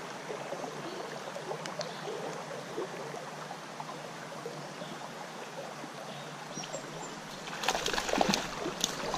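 Shallow creek water running steadily around a wading angler. Near the end comes a short flurry of splashes and clicks as a trout takes the fly and is hooked.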